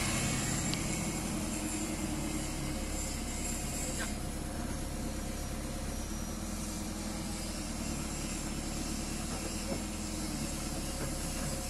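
Heavy diesel engine idling steadily, from the machinery unloading precast concrete slabs. A motorcycle passes close by at the start.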